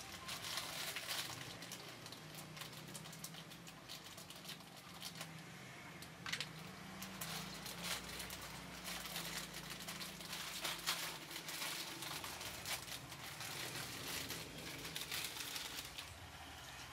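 Cooking and food-preparation handling sounds: irregular small clicks and knocks of utensils against pans and crockery, with some crinkling, over a low steady hum.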